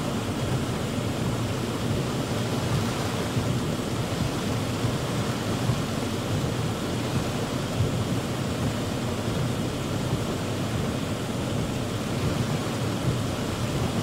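Heavy rain falling on a car's roof and windshield, heard from inside the cabin as a steady, deep rushing noise with no letup.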